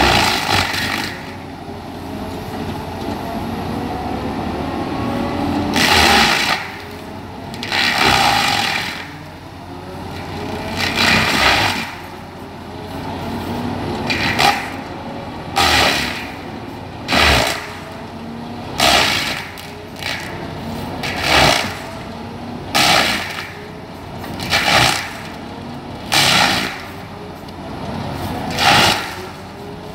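Denis Cimaf 150e forestry mulcher head on an excavator grinding down a standing pine trunk from the top. Its spinning rotor teeth take repeated loud grinding bites into the wood, more than a dozen of them, about every one and a half to two seconds and closer together later on. Between bites a machine whine rises and falls.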